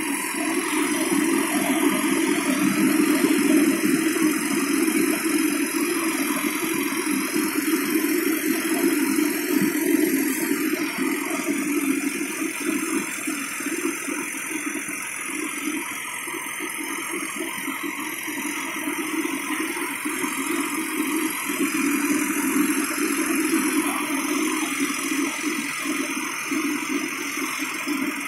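Fendt tractor's diesel engine running steadily while towing a combine, swelling over the first few seconds, easing somewhat in the middle and picking up again later.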